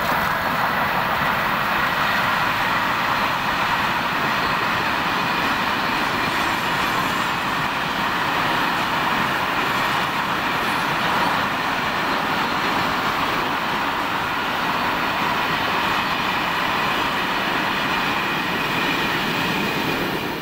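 Container freight train hauled by a BLS Cargo Re 485 electric locomotive passing close by: a steady rolling noise of the wagons' wheels on the rails that holds level as the long train goes by.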